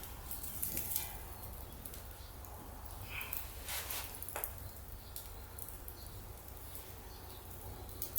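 Wood fire on a fire stand crackling, with scattered sharp pops and clicks over a steady low hum.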